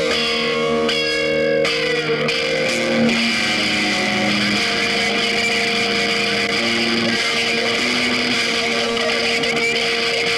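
Music with guitar: held notes that change pitch every second or so over a steady, dense backing.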